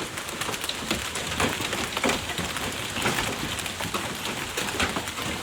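Heavy rain falling, a dense patter with scattered sharper drop hits.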